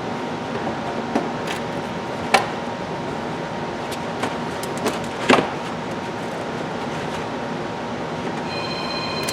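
Plastic car trunk trim panels clicking and snapping as they are pried loose, several sharp snaps over a steady whirring background hum. Near the end a phone starts ringing with a steady high electronic tone.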